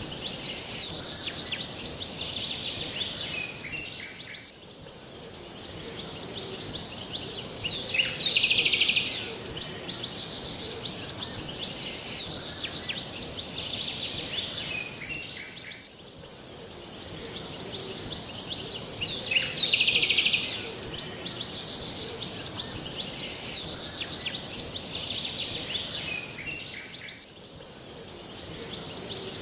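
Looped nature-ambience background track of chirping, repeating about every eleven to twelve seconds, with a brief louder burst of chirps twice.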